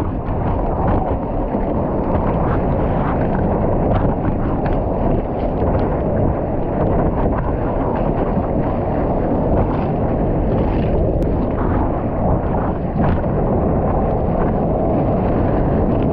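Sea water rushing and splashing around a surfer's GoPro, with wind buffeting the microphone: a steady dense wash broken by many short splashes.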